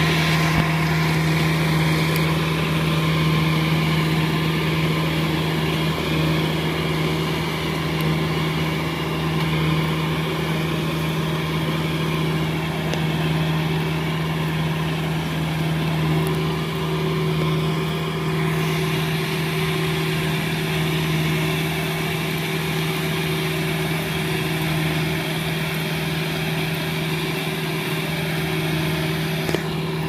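Kubota DC70 tracked combine harvester running steadily while harvesting rice: its diesel engine and threshing machinery make a constant, even drone with one strong low tone.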